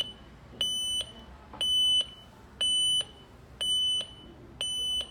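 Broadlink smart security alarm beeping: a high-pitched electronic beep repeating about once a second, each beep under half a second, sounding because the armed system's door sensor has been opened.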